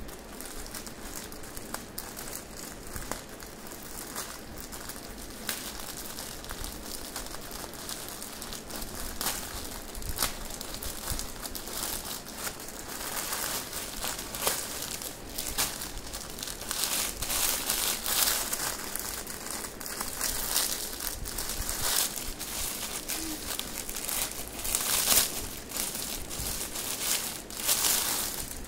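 Plastic courier mailer and clear plastic wrapping crinkling and rustling as hands open the package and pull out a folded saree. The crackles are irregular, get busier partway through and are sharpest near the end.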